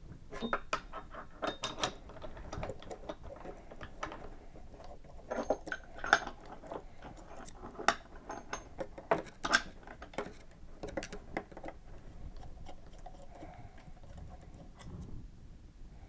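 Scattered clicks, taps and light rattles of metal limit-switch housings, a quick-disconnect cable connector being threaded on and a screwdriver at terminal screws, handled on a tabletop, with soft rustling of wires between the knocks.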